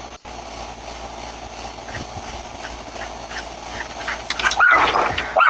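Steady outdoor background hiss, then near the end a dog gives a short whine that rises and falls in pitch.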